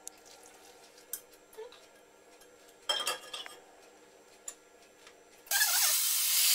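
A few light clinks of dishes and utensils on the counter, then, about five and a half seconds in, an electric hand blender with a whisk attachment switches on and runs steadily, whisking egg-and-milk batter in an enamel bowl. The motor is by far the loudest sound.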